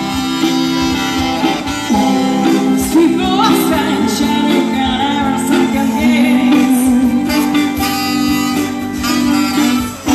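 Live brass band playing a pop song, with singing in places.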